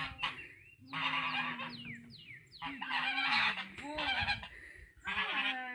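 Goose honking repeatedly: a series of loud, harsh calls with short pauses between them.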